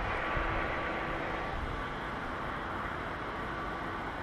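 Steady outdoor background noise with a faint steady hum running through it, a little louder in the low end during the first second or so.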